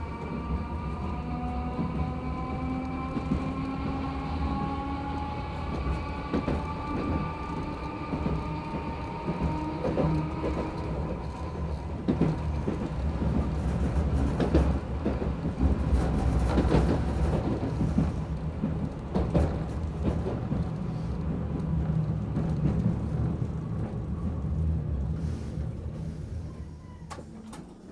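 Toei Arakawa Line streetcar heard from inside as it runs along the track. A motor whine rises gently in pitch over the first ten seconds as the car gathers speed, then the wheels knock and rattle over the rails. The sound falls away near the end as the car slows into a stop.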